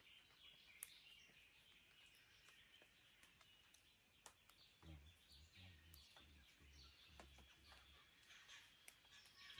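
Faint dawn birdsong in an Australian forest: scattered chirps and short calls from several birds. About halfway through, a low pulsing rumble joins in.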